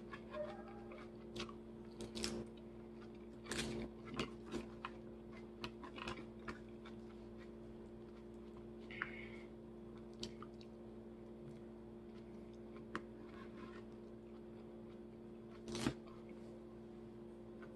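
A person chewing a mouthful of salad close to the microphone: scattered crunches and wet mouth clicks with pauses between, the loudest crunch about sixteen seconds in. A steady low hum runs underneath.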